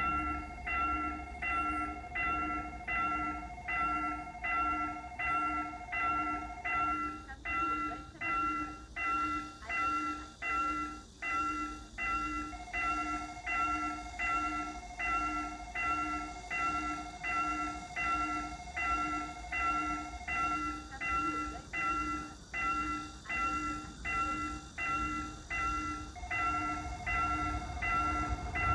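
Railway level-crossing warning bell ringing in an even repeating pattern, about three strokes every two seconds, with a steady higher tone fading in and out over it. It signals an approaching train.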